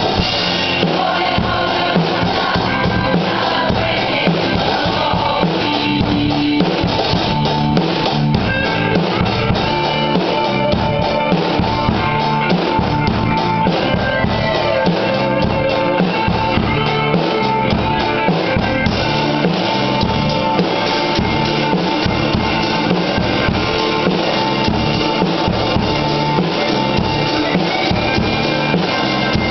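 Acoustic drum kit played in a steady rock beat on bass drum, snare and toms, along with a recorded rock song carrying other instruments and vocals.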